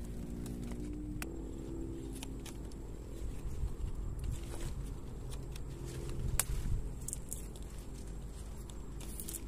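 Plant stems and leaves rustling and crackling as they are handled, with scattered sharp clicks of shoots being snapped off by hand. A faint steady low hum runs underneath.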